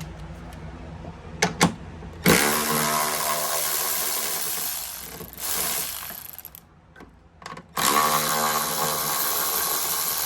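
Cordless power driver with a 10mm socket spinning up and running twice, about three seconds each time, undoing the tail-light mounting bolts. A couple of short clicks come before the first run.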